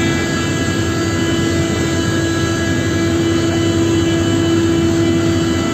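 Aircraft engines running on an airport apron: a loud, steady drone with a held hum and several fainter high whining tones over it.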